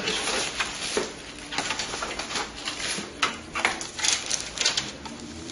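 Irregular clicks, taps and rustling of hands handling computer parts and cables inside a PC case.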